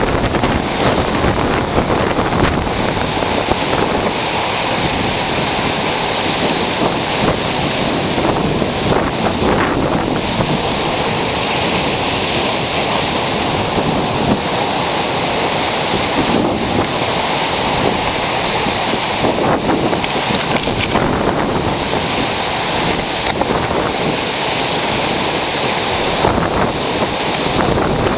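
Ocean surf breaking on a beach, a steady, loud rush of waves, with wind buffeting the microphone.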